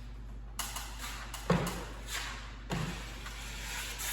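Drywall knife scraping joint compound off the hawk and across the wall, with two sharp knocks about one and a half and two and a half seconds in.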